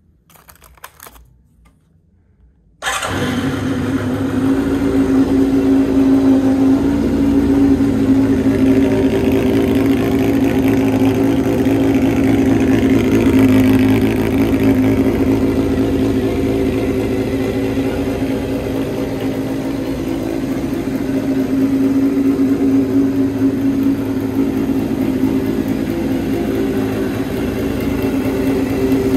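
Kawasaki Zephyr400χ air-cooled inline-four running through a Pretty Racing full exhaust: after a few faint clicks it starts abruptly about three seconds in and settles into a steady idle.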